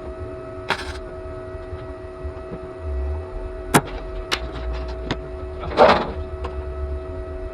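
A steady electrical hum with a few scattered clicks and knocks, and a short rasping burst about six seconds in.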